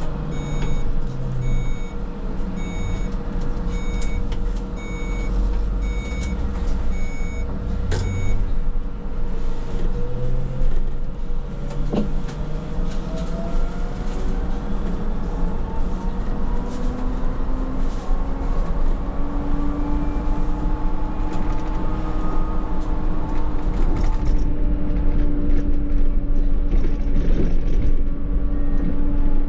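Škoda 27Tr trolleybus: an electronic warning beep repeats about three times every two seconds for the first eight seconds. Then the traction drive's whine rises steadily in pitch as the trolleybus speeds up, with a single clunk about twelve seconds in.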